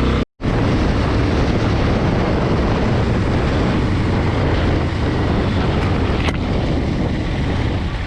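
Motorcycle engine running steadily under way, with heavy wind rush over the camera's microphone. The sound cuts out completely for a moment just after the start.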